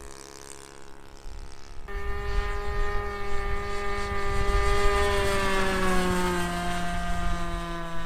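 Small model-airplane engine running in flight, a steady buzzing note that gets louder about two seconds in and drops in pitch as the plane passes. Wind rumbles on the microphone underneath.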